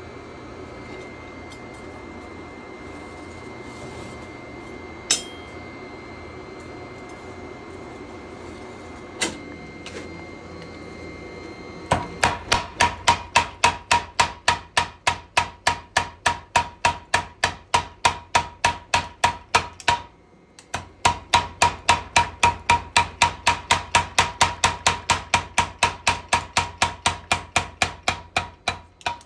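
A mechanical power hammer forging a knife blade: rapid, even blows with a metallic ring, about four a second, in two long runs with a short break between them. Before the hammering there is a steady shop hum with two single knocks.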